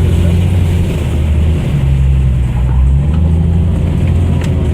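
Off-road vehicle engine running under load, a steady low drone whose pitch drops just before two seconds in and shifts again around three seconds.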